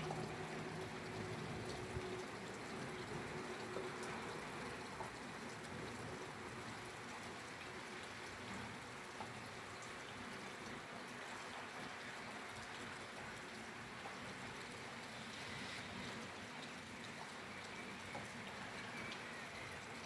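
Steady rainfall: an even hiss of rain with scattered drops ticking on a surface.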